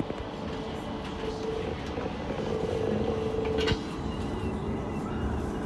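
Light-rail tram running slowly, heard from the driver's cab: a steady rumble and hum with an electric whine that swells a little over a second in and holds for a couple of seconds. A sharp click comes about two-thirds of the way through.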